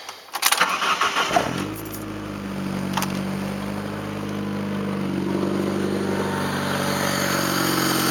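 1993 Saturn SW2's 1.9-litre twin-cam four-cylinder engine cranking briefly and catching within about a second and a half, then settling into a steady idle with no misfire. A single sharp click about three seconds in.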